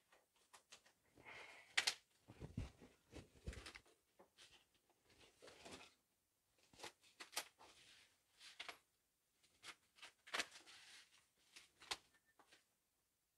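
Scissors snipping through bubble wrap, the plastic crinkling and rustling as it is cut and pulled back. It comes as an irregular run of crackles and clicks with short pauses, plus a few dull knocks from handling the box.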